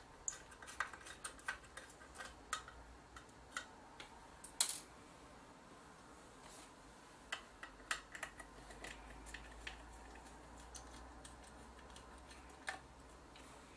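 Faint, scattered small clicks and ticks of a screwdriver backing small screws out of the plastic LCD screen housing of a Sony PMW-EX3 camcorder, with one louder click about four and a half seconds in.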